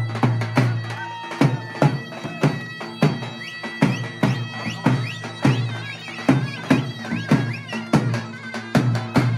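Turkish folk dance music (oyun havası): a reedy, bagpipe-like wind melody over a steady low drone, driven by a drum beat about twice a second.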